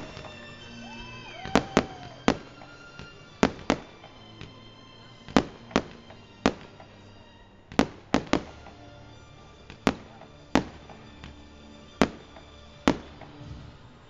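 Fireworks going off: a series of about fifteen sharp bangs at irregular intervals, some in quick pairs, as shots launch and burst in the air.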